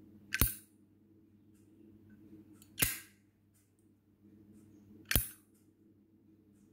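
1998 Zippo windproof lighter's hinged lid flicked open and snapped shut: three sharp metallic clinks about two and a half seconds apart.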